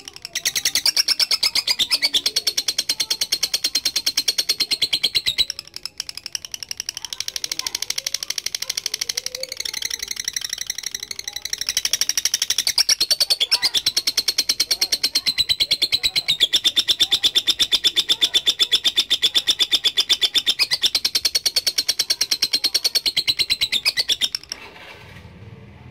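Lovebird singing a long ngekek: a very fast, continuous high-pitched chattering trill. It breaks off briefly about five and a half seconds in, runs softer for a few seconds, then continues at full strength and stops shortly before the end.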